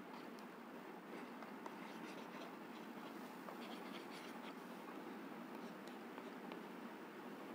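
Faint tapping and scratching of a digital stylus as words are handwritten on a slide, over a steady low hiss.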